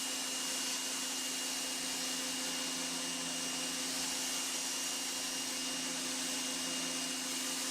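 Homdox 3500 PSI electric pressure washer running steadily, its motor and pump humming under the hiss of water spraying through the wide white fan tip onto concrete.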